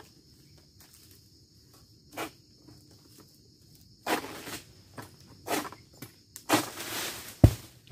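Oil palm harvesting sickle (egrek) on a long pole pulling and sawing at a fruit bunch and fronds high in the palm crown: a few rustling, scraping strokes that grow louder, then one heavy thud near the end. A steady high insect drone runs underneath.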